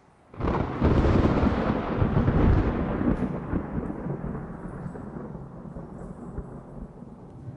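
A recorded thunder sound effect: a loud clap builds within about half a second, then a deep rumble rolls on and slowly dies away over several seconds.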